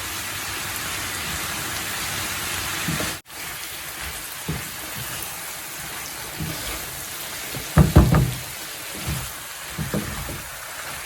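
Julienned vegetables sizzling in a hot pan as they stir-fry, a steady hiss, with a few scattered knocks of the stirring utensil against the pan, the loudest about three quarters of the way through. The sound cuts out for an instant about a third of the way in.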